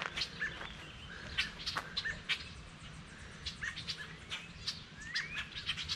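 Several songbirds chirping and calling in short, overlapping notes, with one rising call about five seconds in.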